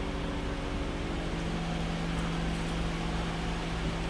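Steady hum of a running Lexus ES350 with its door open, a constant low drone with a few fixed tones that does not change.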